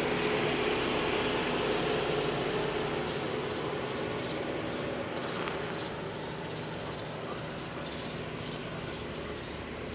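Crickets chirping in a steady, pulsing chorus, over the low hum of a car engine running that fades as the car drives away.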